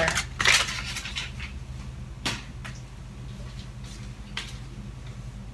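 Foil butter wrapper crinkling as it is peeled off the butter and lifted away, then two light knocks, about two seconds apart, over a steady low hum.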